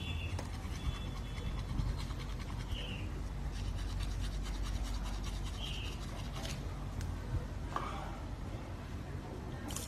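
Faint steady background hum with scattered soft scratches and clicks, and two short high chirps about three and six seconds in.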